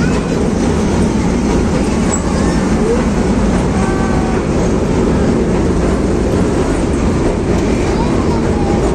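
Park toy train running, a steady rumbling rattle heard from on board the open car, with faint voices now and then.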